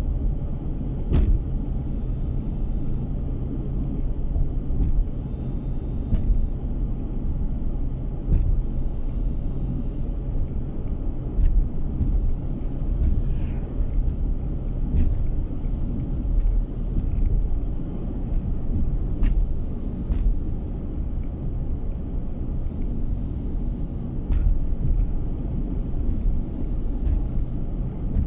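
Car driving at steady road speed, heard from inside the cabin: a continuous low rumble of engine and tyres on the road, with scattered faint clicks.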